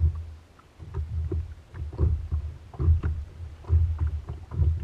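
Small waves slapping and lapping against the plastic hull of an anchored sit-on-top kayak, a run of irregular low thuds about every half second with faint splashy ticks.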